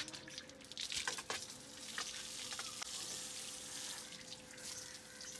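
Water from a garden hose spraying and splashing onto a motorcycle's front wheel and engine: a steady hiss with scattered small ticks of drips and splashes. A faint steady hum runs underneath.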